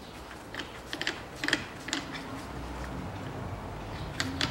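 Scattered light metallic clicks as a strut top nut is spun by hand down the threaded shock-absorber rod onto a newly fitted top-mount bearing, with a double click near the end. A low steady hum comes in about halfway.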